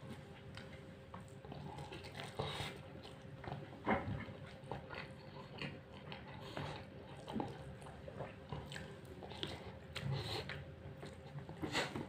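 Someone eating chicken biryani by hand, with irregular chewing and small mouth clicks. There are soft clicks and rustles from fingers picking at rice in a plastic takeaway tray.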